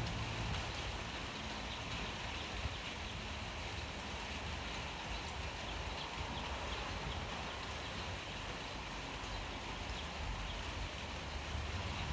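Steady rain falling: an even hiss with faint scattered drip ticks.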